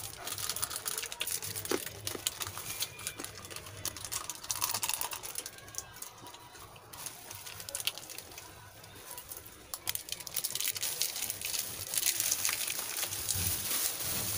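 Snack wrappers crinkling and people chewing: a scatter of small clicks and rustles, quieter around the middle.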